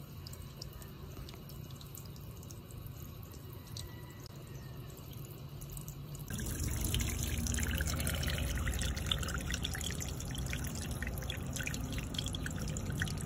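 Water from a garden hose forced through a jet ejector's small nozzle, bubbling and splashing up out of the ejector's larger pipe opening. It turns louder and splashier about six seconds in.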